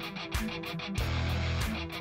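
Background rock music: guitar over a steady drum beat.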